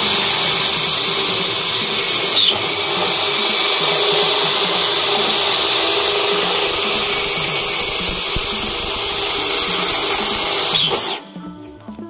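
Electric hand drill boring a bolt hole through a galvanized steel cable tray, running steadily with a high whine. Its pitch dips briefly about two and a half seconds in, and it stops about a second before the end.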